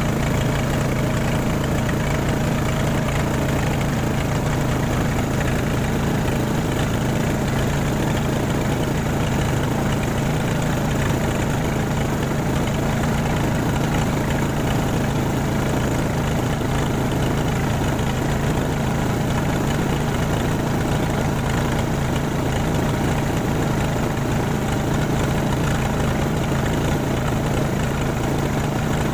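Engine of a pompong, a small wooden river motorboat, running at a constant speed with the boat under way: a loud, steady low drone that does not change.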